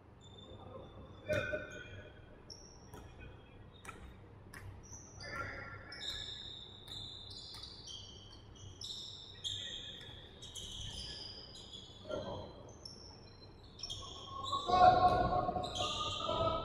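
Basketball game in a large hardwood-floored gym: sneakers squeaking on the floor in many short high chirps, with a ball bouncing and thudding. Players call out, loudest about fifteen seconds in.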